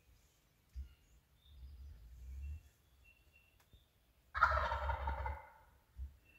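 Wild turkey gobbler gobbling once, a loud rolling call lasting about a second, a little past the middle. Quieter low rumbles come before and after it.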